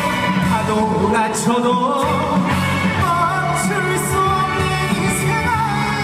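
Trot song performed live: a male singer's amplified voice with vibrato over instrumental accompaniment with a steady bass line.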